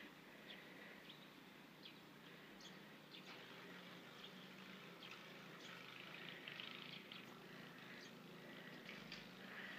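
Near silence: faint outdoor ambience in fresh snow, with scattered brief faint high ticks and chirps.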